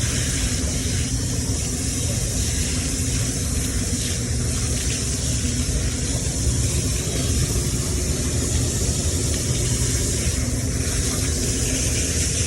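Steady hiss of a water spray washing down an air-conditioner condenser coil, over a continuous low rumble.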